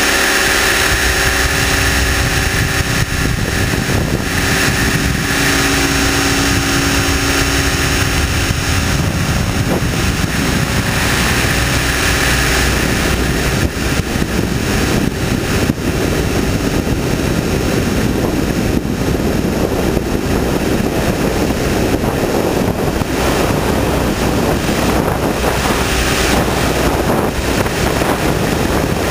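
Align T-Rex 600ESP electric RC helicopter's motor and rotor blades running close to the camera. A steady whine is heard for roughly the first nine seconds, then a rushing noise takes over as it flies.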